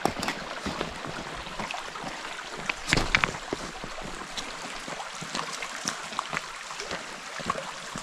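Shallow rocky creek running over stones, with the footsteps of hikers knocking on the rocks as they cross; the loudest steps come about three seconds in.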